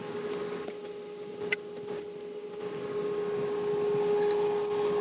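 A steady hum at one pitch, with light metallic clicks about a second and a half in as the stainless steel pipe coupon is handled on its jig.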